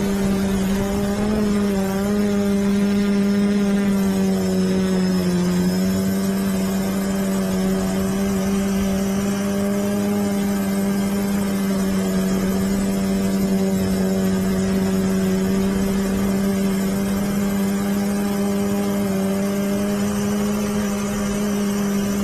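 Quadcopter's motors and propellers heard from on board, a steady buzzing hum whose pitch wavers a little over the first few seconds as the throttle shifts, then holds even.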